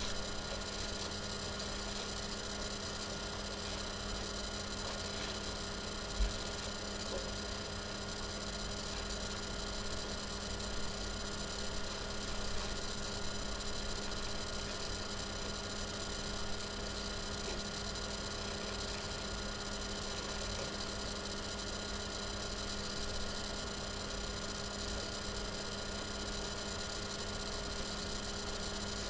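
Steady electrical mains hum, a constant buzzy stack of tones that does not change. There is one short soft thump about six seconds in.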